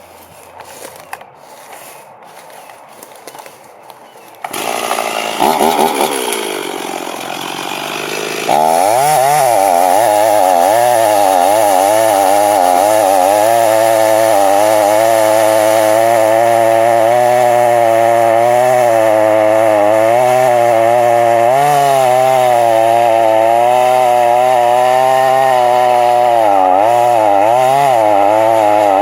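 Chainsaw comes in about four seconds in, then from about eight seconds runs at full throttle cutting the back cut through the trunk. Its pitch dips and recovers as the chain loads in the wood.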